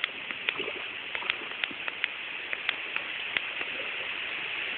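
Light splashing of a hooked fish at the water surface as it is drawn in: a steady hiss with scattered small, sharp ticks of water.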